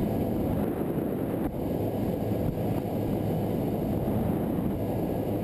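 A center console bay boat under way, heard on board: a steady engine drone under hull and wind noise, holding an even pace throughout.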